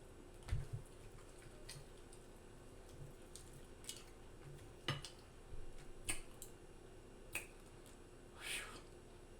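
Close-miked mouth smacking while eating: scattered wet clicks from the lips and tongue, spaced irregularly about a second apart. A short breath comes near the end.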